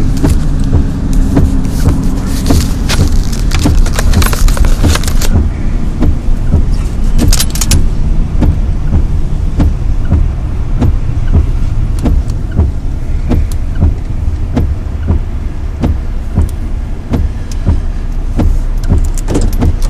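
Truck driving, heard from inside the cab: a steady low rumble of engine and road, with frequent short rattles and knocks from loose things jangling in the cab.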